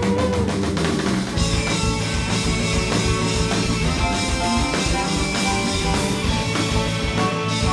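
Live alt-rock band playing an instrumental passage on guitar and drum kit, with no vocals; the cymbals and high end fill out about a second and a half in.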